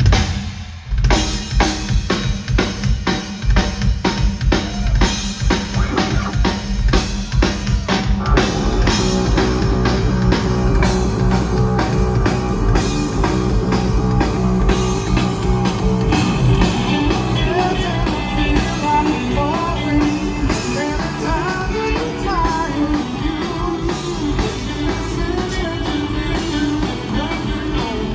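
Live rock trio: the drum kit plays the intro alone, with a brief stop just after the start. About eight seconds in, the electric guitar and bass guitar come in with the drums and the full band plays on.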